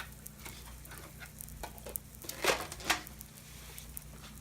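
Grilled cheese sandwich frying in olive oil in a fry pan, sizzling with fine crackles and pops. Two louder clicks come about two and a half and three seconds in.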